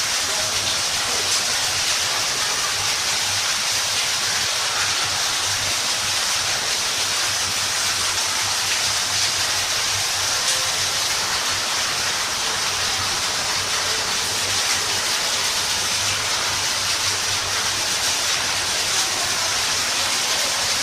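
Steady rush and splash of water pouring down a man-made waterfall, an even hiss with no break.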